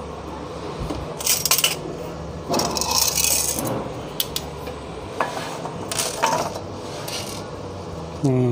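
Small metal clatter from speaker parts being handled: several short bursts of clinks and rattles as a loudspeaker driver with a steel magnet can is picked up and moved and hardware is reached for, over a low steady hum.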